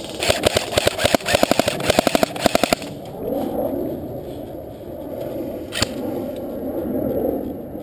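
Airsoft rifle firing a rapid string of about seventeen sharp pops over two and a half seconds. This is followed by footsteps rustling through dry leaf litter, with a single click near the end.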